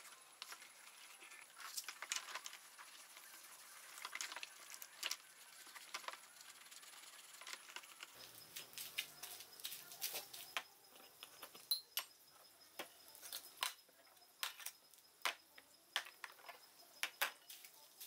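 Wet scrubbing and soft sloshing of soapy water as a moka pot part is rubbed by hand in a plastic tub, followed from about halfway by a run of sharp clicks and clinks as the metal moka pot parts are handled and set down in the tub.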